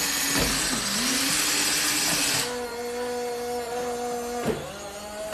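Small geared electric motors of a toy remote-control excavator running: a harsh whirr for about two and a half seconds, then a steadier, higher whine that cuts off about four and a half seconds in.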